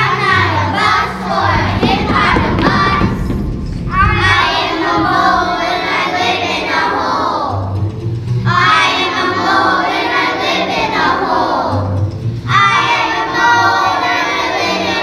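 A group of young children singing a song together over an instrumental accompaniment with a steady low beat, in phrases of about four seconds with short breaths between them.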